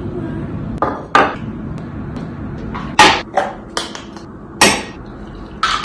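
A series of sharp knocks and taps on something hard, irregularly spaced, the loudest about three seconds in.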